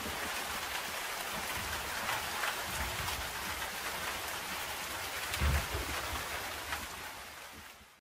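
Steady ambience of falling water, a hiss across the range, with a low rumble about five and a half seconds in. It fades out over the last second.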